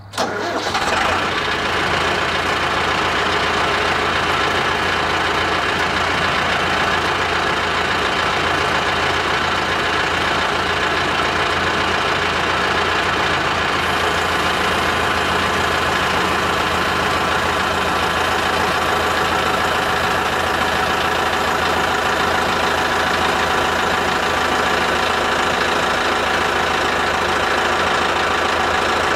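Mahindra 8560 tractor's diesel engine running steadily under load while the front loader's hydraulics lift against a chained-down semi truck. It starts abruptly and holds loud and even throughout.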